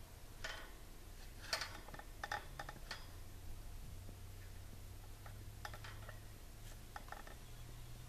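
A budgerigar preening: a few faint, irregularly spaced clicks and soft rustles as her beak works through her feathers, the loudest about a second and a half in, over a steady low hum.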